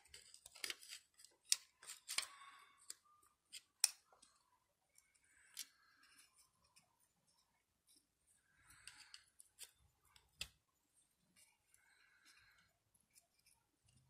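Small metal clicks and scrapes of a hand tool and valvetrain parts being worked at a rocker stud on a small-block Chevy cylinder head: a run of sharp clicks in the first few seconds, then scattered fainter clicks and short scrapes.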